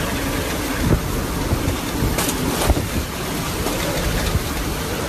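Hurricane-force wind driving heavy rain, buffeting the microphone in a steady loud rush. A couple of sharp knocks come about halfway through.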